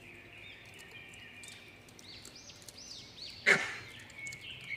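Birds chirping lightly in the background, broken about three and a half seconds in by one short, loud, harsh monkey call from the squabble over food.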